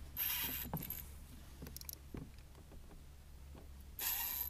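Spinning reel drag buzzing twice in short bursts as a hooked largemouth bass pulls line off: once just after the start, for under a second, and again near the end. Small clicks and rod handling sounds come in between.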